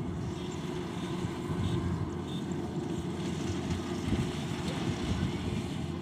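Kubota DC-105X combine harvester's diesel engine running steadily as it works through a rice crop, a constant low drone.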